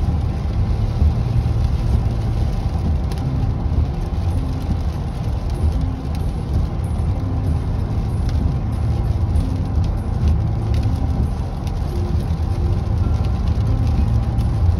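Steady road noise heard from inside a moving car's cabin: a constant low rumble of tyres on wet highway pavement, with the engine running underneath.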